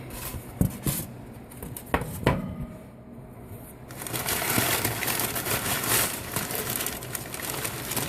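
Packaging being handled: a few knocks and taps, then from about halfway a steady crinkling and rustling of packing material.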